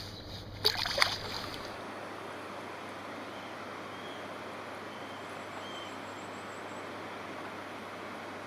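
Steady rushing of river water, with a couple of sharp, loud sounds about a second in.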